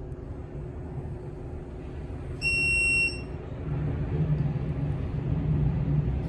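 Hydraulic elevator ride: a steady low hum, then a single electronic beep lasting just over half a second, about two and a half seconds in, as the cab reaches the floor. The low hum grows louder after the beep.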